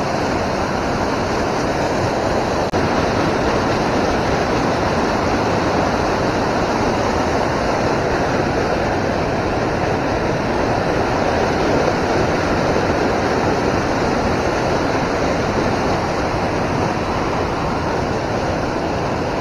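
River water rushing steadily, an even, unbroken noise.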